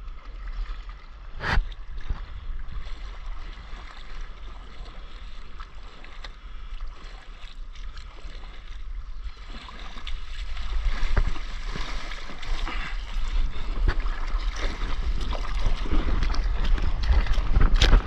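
Water splashing and rushing along a stand-up paddleboard, with wind buffeting the microphone. The rushing grows louder from about ten seconds in as the board picks up speed on a wave. A sharp knock sounds near the start and another near the end.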